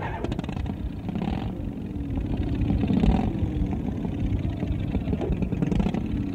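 Small 80cc motorcycle engine recorded close up from the fender, revving up and down several times. It is doctored in the mix to stand in for a Harley-Davidson.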